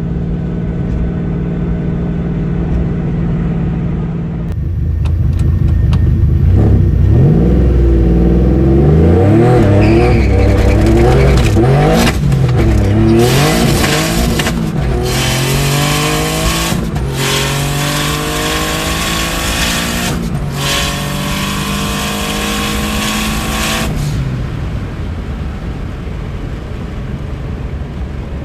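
Turbocharged Nissan 350Z's V6 engine running steadily, then accelerating hard: revs first rise and fall unevenly, then climb through a long pull broken by several quick upshifts. The engine lets off near the end and settles back to steady running.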